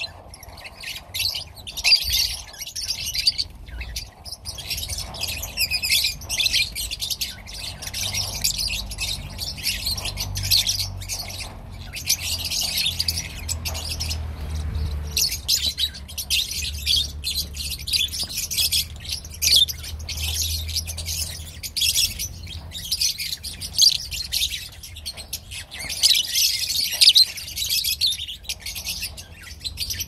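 A group of lovebirds chattering: a dense, unbroken mass of high-pitched chirps and squawks from many birds calling over one another. A faint low hum runs underneath.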